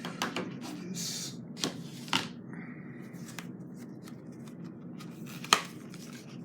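Packaging being handled as items are lifted out of a box: paper and cardboard rustling with scattered clicks and taps, and one sharp tap about five and a half seconds in.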